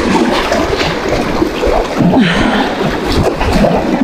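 Wind buffeting the microphone with a steady rumble, over small waves lapping and splashing against the rocks of a breakwater.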